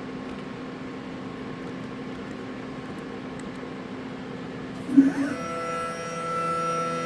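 CNC lathe's axis drive motor: a steady electrical hum, then about five seconds in a loud knock and a quickly rising whine as the axis starts moving, settling into a steady high whine.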